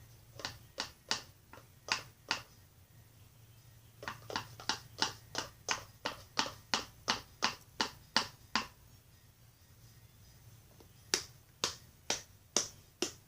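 Runs of sharp, wet clicks, about two to three a second, that stop and start again twice: homemade slime of glue and Tide being stirred and worked in a container.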